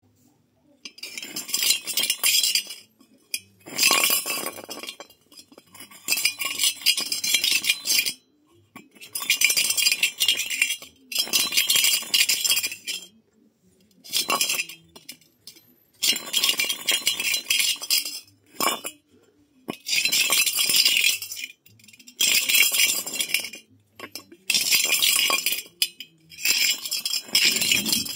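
Hollow copper ball twirled by hand on a concrete slab, its rim scraping and clinking against the stone in repeated bursts of one to two seconds, about a dozen, with short pauses between.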